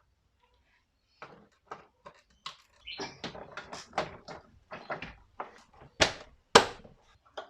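Clicks and knocks of plastic car door trim being pushed and snapped back into place, ending in two loud sharp knocks half a second apart.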